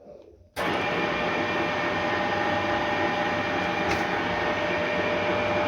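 Retrofitted Ruhla FUW 250/IV milling machine switching on abruptly about half a second in, then running at a steady speed. A loud even mechanical drone carries several steady whining tones, from the AC motor and gear drive.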